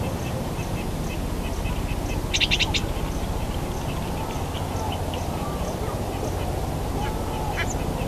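Acorn woodpecker giving a quick, harsh series of about five calls about two seconds in, over steady low background noise, with faint high ticks repeating a few times a second throughout.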